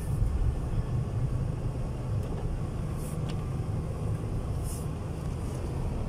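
Car engine running under gentle acceleration, with steady road noise from driving over snow, heard inside the cabin.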